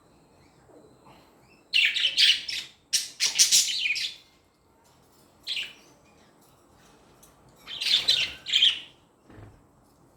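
Budgies chirping and chattering in loud bursts: a long run of about two seconds starting near the two-second mark, a short call about five and a half seconds in, and another burst near eight seconds.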